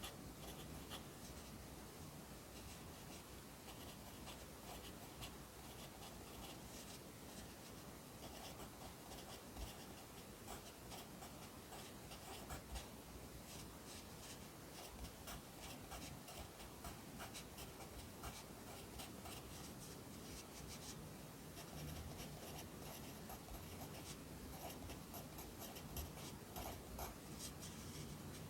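Pencil writing Korean characters on paper, close up: a continuous run of short, quick scratching strokes with brief lifts between them.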